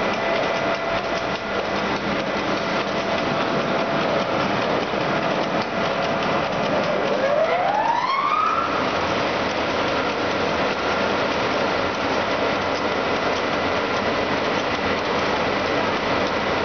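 AAC block vertical cutting machine with its suction system running: a steady rushing machine noise. About seven seconds in, a whine rises in pitch over a second or two and then holds faintly.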